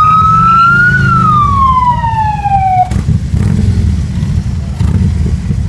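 Motorcycle siren winding up, then falling in pitch and cutting off about three seconds in, over the steady low rumble of Harley-Davidson V-twin motorcycle engines running.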